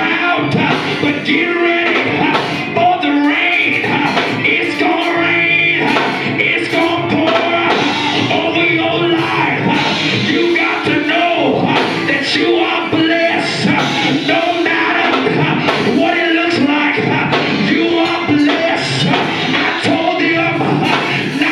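Loud live gospel music of a church praise break, with a steady beat and voices singing over it.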